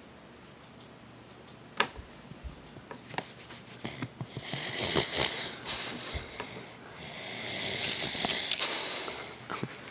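Sleeping pit bull–Olde English Bulldog mix snoring: two long, hissy breaths, each about two seconds, a couple of seconds apart. A sharp click sounds just under two seconds in.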